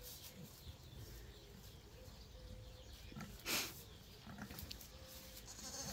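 A ewe's soft, low rumbling grunts to her newborn lamb, coming and going quietly, with one short louder noise about halfway through.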